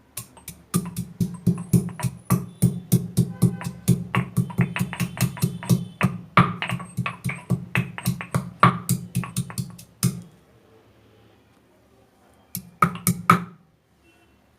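Fresh ginger and black peppercorns being pounded on a stone, with about four dull, ringing strikes a second for roughly ten seconds. After a pause, a few more quick strikes come near the end.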